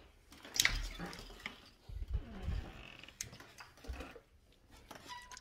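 Handling noise from a handheld phone being moved: scattered rustles and light knocks, with a brief faint falling voice-like sound about two seconds in.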